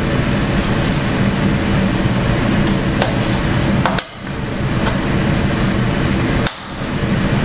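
Steady machine hum throughout, with two sharp clicks about four and six and a half seconds in, each followed by a brief drop in level.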